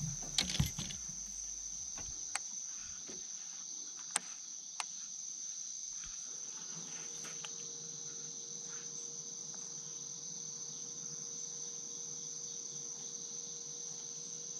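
Steady, high-pitched chorus of insects from the lakeside vegetation, with a few sharp clicks in the first five seconds.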